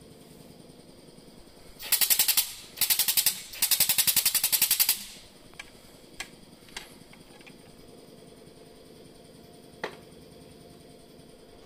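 Pneumatic pump of an air-over-hydraulic floor jack chattering in three short bursts of rapid pulses, the longest about a second and a half, as compressed air drives the jack. A few light clicks follow, with a sharper one near the end.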